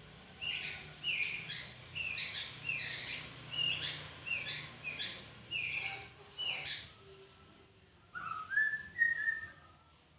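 Murai (Copsychus) songbird singing: a rapid run of sharp whistled notes, each sweeping downward, about two a second for six or seven seconds. Near the end comes a lower, rising whistled phrase, the loudest part.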